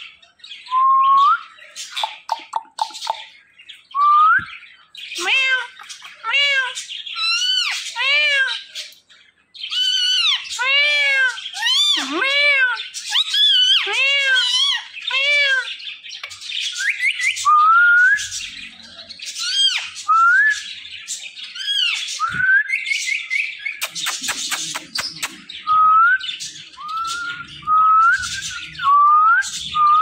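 Indian ringneck parakeet calling: a long run of sharp rising whistles and arched squawking chirps. About three-quarters of the way through comes a burst of rapid rattling clicks.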